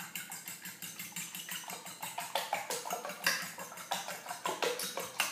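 Fork beating raw eggs in a ceramic bowl: a quick, even run of clicks as the fork strikes the bowl, about four a second.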